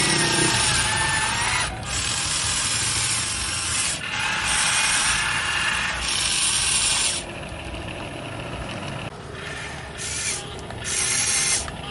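Radio-controlled model excavator's electric motors and gears whirring in long runs that stop and start abruptly. The runs are shorter and quieter in the second half.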